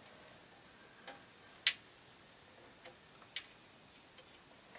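A few sharp clicks and taps of hard parts being handled, about four of them scattered over a quiet background, the loudest a little under two seconds in.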